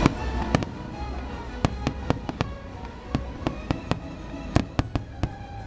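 Fireworks bursting: more than a dozen sharp cracks at irregular intervals, right after the show's music ends at the start.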